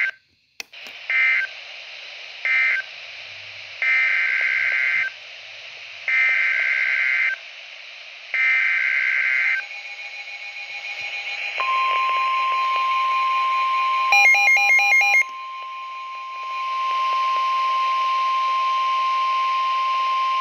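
Midland weather alert radio sounding NOAA Weather Radio alert signals. First come three short warbling digital data bursts, then three longer ones: the SAME codes that close one message and open a new warning. About 11.5 seconds in, the steady 1050 Hz warning alarm tone starts and holds to the end, with a louder rapid pulsing beep breaking in for about a second a few seconds after it starts.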